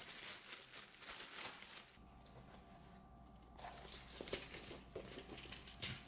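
Clear plastic packaging bag crinkling and rustling as it is handled and pulled off a canvas tote bag. The crinkling is faint, eases off for a second or so in the middle, then picks up again.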